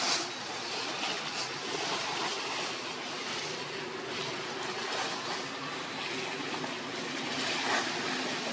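Steady rushing outdoor noise with faint rustles through it.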